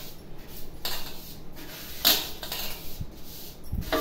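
Large aluminium bowl knocking and scraping against the rim of a plastic bucket as pickle spice mix is tipped and pushed out of it. A few short rasping scrapes come about a second apart, with a dull knock near the end.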